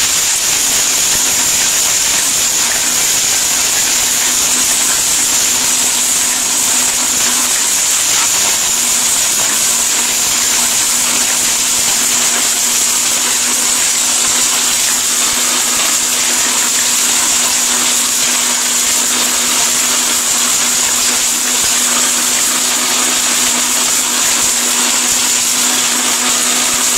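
Orpat 1600-watt countertop blender running continuously at full speed in its stainless-steel jar, grinding hard dried turmeric roots into powder. It gives a steady motor hum with a high whine over a rushing grinding noise.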